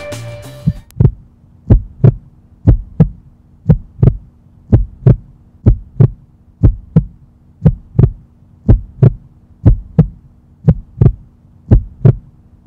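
Heartbeat sound effect: paired lub-dub thumps about once a second over a steady low drone, after music fades out in the first second.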